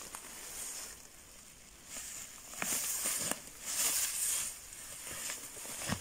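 People walking through tall, dense grass: the grass swishes against legs and clothing in uneven rustling bursts with soft footfalls, quieter for a moment about a second in, then picking up again.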